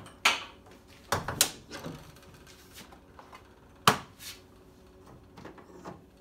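Jeep Wrangler JK hood being opened: the hood latches unhooked, the hood lifted and set on its prop rod, giving a series of clicks and clunks, the sharpest about four seconds in.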